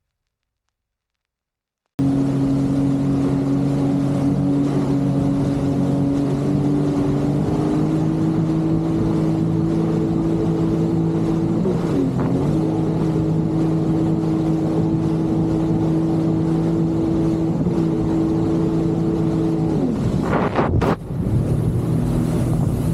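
Jet ski engine running at a steady throttle with wind and water noise, starting about two seconds in. The engine note dips briefly about halfway through as the throttle is eased and comes back, and drops again near the end.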